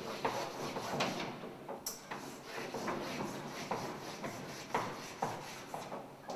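White chalk scraping across a blackboard in fast, repeated scribbling strokes, a few per second, with one sharp high click about two seconds in.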